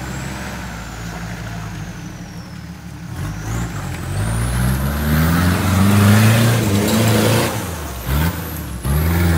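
Off-road vehicle's engine revving under load. It climbs in pitch from about three seconds in to a peak a little past halfway, drops off, then comes back in short blips of throttle near the end.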